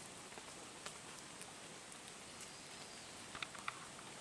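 Quiet outdoor ambience: a faint steady hiss with a few scattered light ticks, one about a second in and two close together past the three-second mark.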